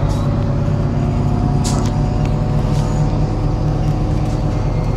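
MAZ-103 city bus engine running with a steady low drone, heard from the passenger cabin, with two brief hisses near the middle.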